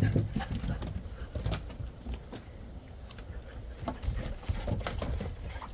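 Golden retriever puppies moving about on a wooden deck: scattered light taps and patters of paws and claws on the boards.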